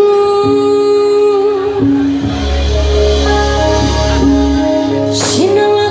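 Live band music with a female singer holding a long note into a microphone, over held chords, bass guitar and drums; a short crash about five seconds in, then the ornamented vocal line resumes.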